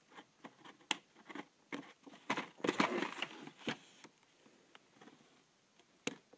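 Fingers picking and scraping at the end flap of a cardboard toy box, trying to prise it open: a string of small clicks and scratches, with a denser scraping rustle in the middle.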